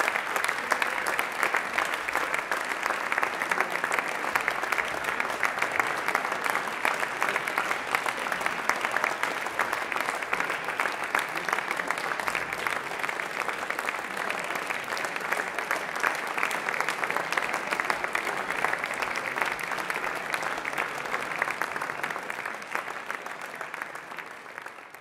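Audience applauding steadily, a dense continuous clapping that eases off slightly near the end.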